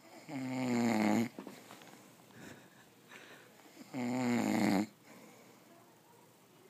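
A man snoring: two loud snores, each about a second long and about three and a half seconds apart, with quieter breathing between them.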